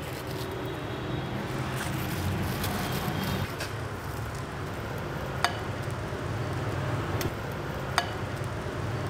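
Steady hiss of simmering broth pots at a noodle stall's cooking station, with a few short, sharp clinks of utensils against bowls and steel trays while a bowl of noodle soup is put together.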